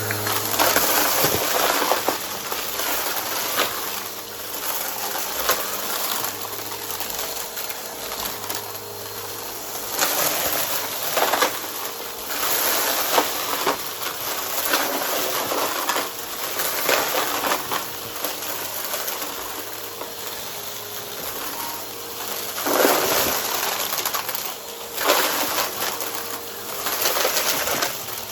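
Brushroll vacuum cleaner running with a steady motor hum while it sucks up crunchy debris, giving irregular surges of crackling and crunching.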